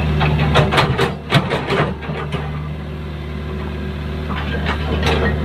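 Excavator's diesel engine running steadily, with a quick series of metallic clanks and knocks about a second in and a few more near the end, as the machine works the bucket.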